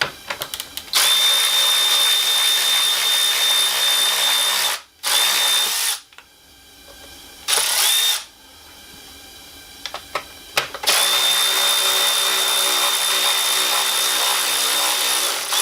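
Cordless power tool spinning an 8 mm socket on a 3/8 drive to back out the screws holding a radiator fan motor. It gives a steady, high-pitched motor whine in four runs: a long one about a second in, two short ones, and another long one near the end.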